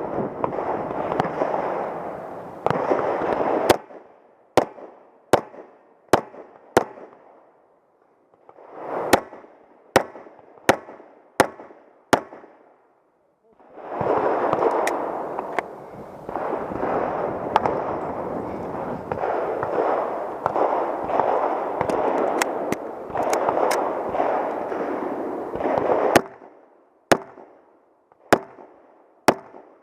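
Handgun shots fired one after another, roughly one every second, in strings broken by short pauses during a timed stage. Under much of the firing there is a loud rushing noise.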